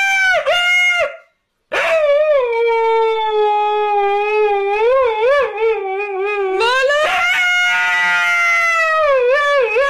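Husky howling in long, wavering calls. The first call breaks off about a second in; after a short pause a long low howl follows, rises in pitch about seven seconds in, and wavers back down near the end.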